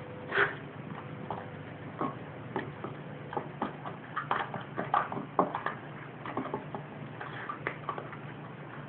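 A dog's paws and claws pattering and clicking in quick, irregular taps as it scampers about, with a couple of louder knocks, about half a second in and around five seconds in.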